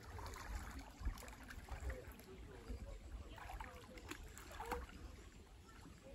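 Water lapping and small splashes close by, with faint, indistinct voices in the distance.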